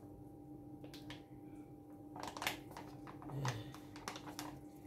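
Soft plastic bag crinkling and rustling in short, scattered crackles as thick fura da nono is squeezed out of it into a glass mug, over a faint steady hum.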